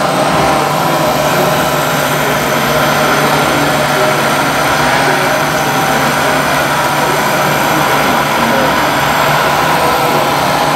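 Steady mechanical whine of the hydraulic pump on a radio-controlled Liebherr 960 scale excavator as it works its boom and bucket.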